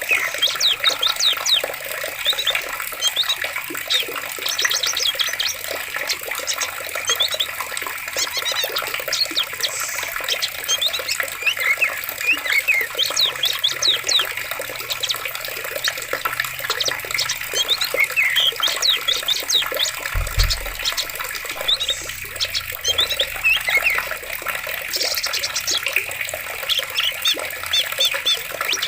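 Forest water flowing steadily, with many birds chirping and singing in quick bursts throughout. A brief low thump comes about two-thirds of the way through.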